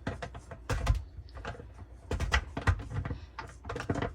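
Irregular plastic knocks and clicks as a removable dishwasher part is pushed and worked back into its seat inside the tub, not yet fully locked in.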